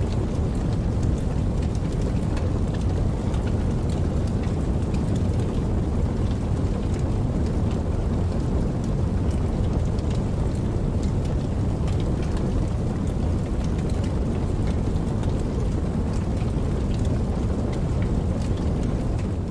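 Campfire crackling with scattered small pops over the steady rushing of a babbling creek.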